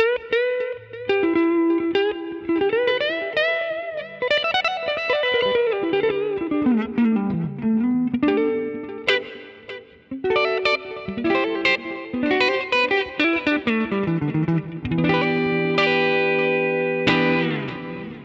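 Electric guitar played through a NUX MG-30 multi-effects processor: a lead melody with string bends and quick runs of notes, then held notes that ring and die away near the end.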